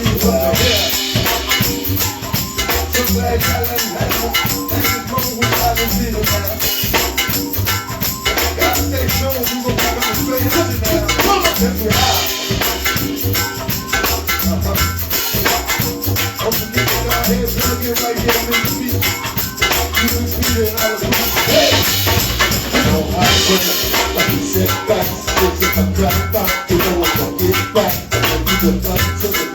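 Live band music with a steady beat: bass, drums and a shaker or similar rattling percussion, with a little singing.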